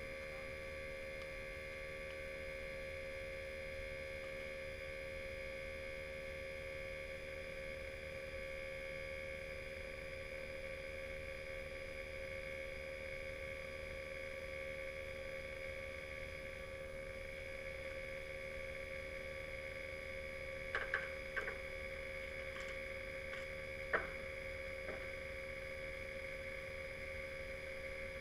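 A steady hum of several even tones, with a few short clicks about three-quarters of the way through.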